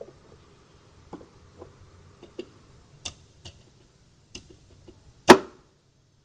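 Irregular light clicks and taps of tools and parts being handled, with one sharp knock about five seconds in.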